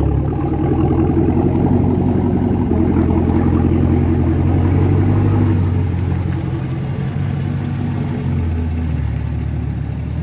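Chevrolet Camaro ZL1's supercharged 6.2-litre V8 running steadily at low revs through an aftermarket cat-back exhaust. It eases off about six seconds in, and its note settles a little lower near the end.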